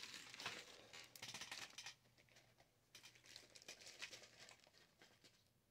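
Faint crinkling and rustling as small parts and their packaging are handled, in two spells of a second or two each.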